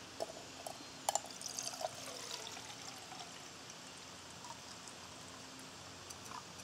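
Water pouring from a plastic bottle into an aluminium cook pot, a steady faint trickle, measuring out water for a boil test. A few light clicks come in the first second or so.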